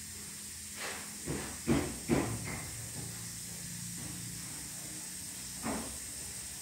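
A steady high hiss over a low hum, broken by a few short knocks: four in quick succession in the first couple of seconds and one more near the end.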